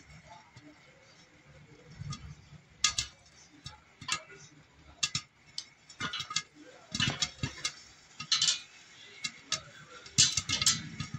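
Popcorn kernels popping in a covered pot under a glass lid: scattered sharp pops at irregular intervals, coming thicker in the second half.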